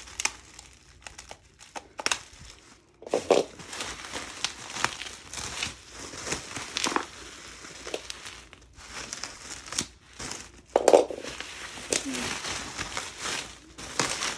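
Packaging and album sleeves crinkling and rustling as albums are handled and pulled out of a mailed package, with scattered small clicks and knocks.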